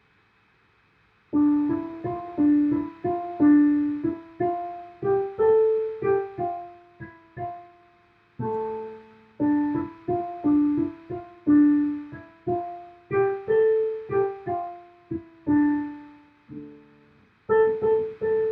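Solo piano playing a short melodic piece in separate struck notes, each fading away, beginning about a second and a half in and moving in short phrases with brief pauses between them.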